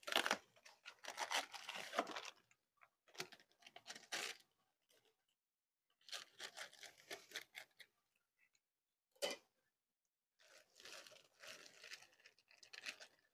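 Plastic pouch of brownie mix being torn open and crinkled by hand, in several bursts of rustling with short pauses between them.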